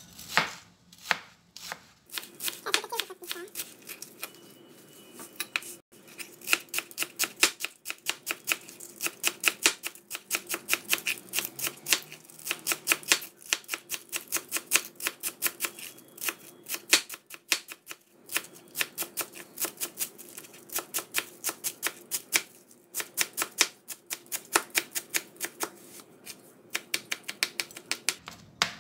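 Chef's knife chopping celery on a plastic cutting board: a long, quick, even run of blade knocks, broken by a couple of brief pauses.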